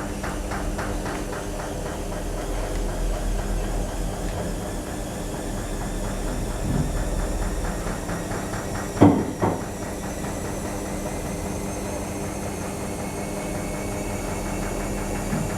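AEG Öko Lavamat washing machine running, its motor humming steadily with an even rhythmic beat in the first half. Two sharp knocks a little past the middle.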